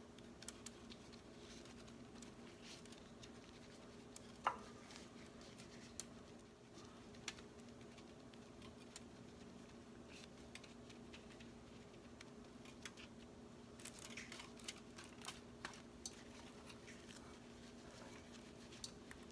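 Faint, scattered clicks and scratches of garlic-buttered bread slices being handled and spread over a foil-lined baking tray, over a steady low hum. One sharper click comes about four and a half seconds in, and a cluster of small clicks about two-thirds of the way through.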